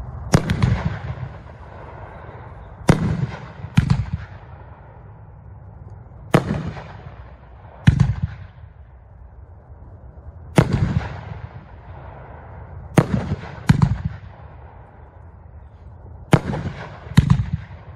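A 10-shot, 2-inch-bore 1.4G firework cake (Super Silver Flash) firing aerial shells. There are about ten sharp booms, mostly in pairs less than a second apart, and each one rings out briefly.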